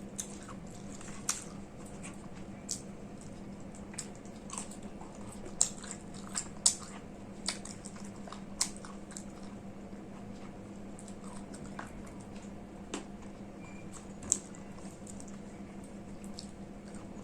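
A person eating rice and curry, close to the microphone: chewing with wet mouth smacks and sharp clicks at irregular intervals, the loudest about six to seven seconds in, over a steady low hum.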